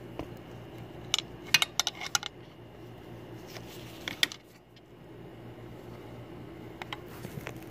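Light metallic clicks and clinks in a few short clusters, about a second in, near the middle and again near the end, from hand tools and parts being handled in a car's engine bay. A steady low hum runs underneath.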